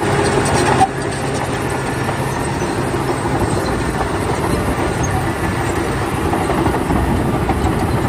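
Large Caterpillar crawler bulldozer working: its diesel engine running steadily under load, with the clatter of its steel tracks.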